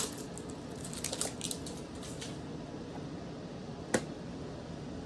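Handling of a Pokémon mini tin and its contents: a few soft rustles and clicks about a second in, then one sharp click near four seconds, over a steady background hum.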